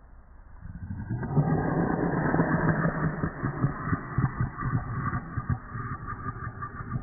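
Dog growling with bared teeth, slowed down: a deep, low rumbling growl that starts about a second in and carries on.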